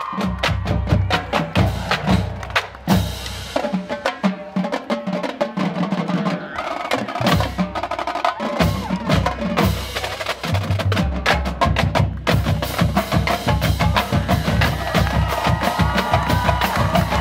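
A marching band drumline of snare drums, tenor drums and bass drums playing a rapid, driving percussion pattern.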